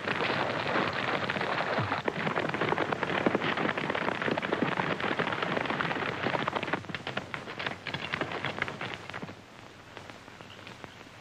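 Horses galloping hard, a dense clatter of hoofbeats mixed with splashing water as they cross a shallow creek. The noise thins and drops off sharply near the end.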